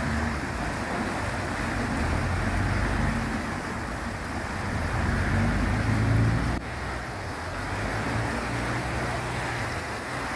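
Strong current rushing and churning through an open sluice gate, with the low hum of a boat engine underneath.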